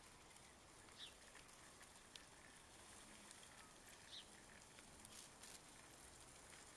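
Near silence: faint outdoor hiss, with two short, faint high chirps, one about a second in and one about four seconds in.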